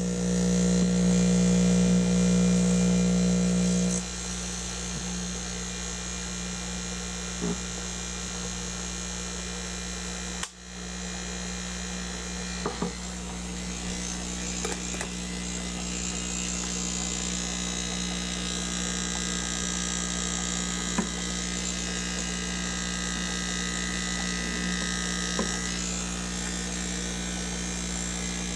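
High-output air pump running with a steady electric hum. It hangs by its rubber feet and has a silicone hose in its intake to damp vibration. The hum drops in loudness about four seconds in, and there are a few light handling clicks.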